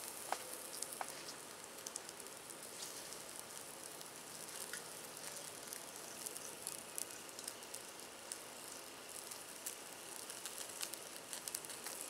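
Bone-in ribeye steak sizzling faintly on the grate over burning charcoal: a steady hiss scattered with small pops and crackles.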